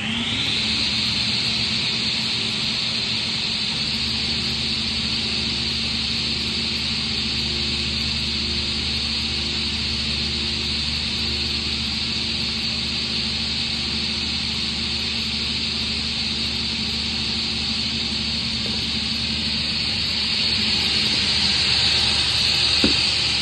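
Guilliet sliding table saw running free, its 5.5 kW main motor and blade spinning with a high, steady whine over a low hum. It finishes coming up to speed in the first half second. It gets a little louder near the end, with a couple of short knocks.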